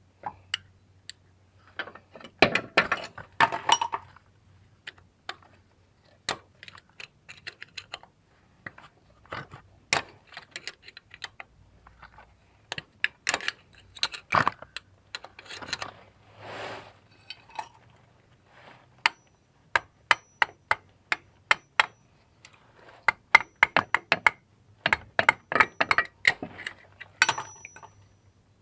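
Irregular clicks, taps and light metal clinks of a hand tool working at a van's A/C compressor clutch, coming in clusters with short pauses between.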